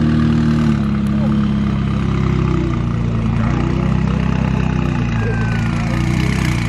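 McLaren twin-turbo V8 idling steadily, a deep even drone, with people chatting in the background.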